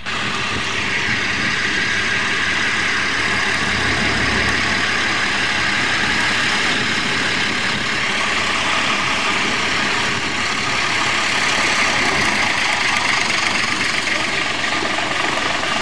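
Small narrow-gauge diesel locomotive running steadily as it hauls a train of wagons past, its engine mixed with the noise of the train rolling along the track. The level stays fairly even throughout.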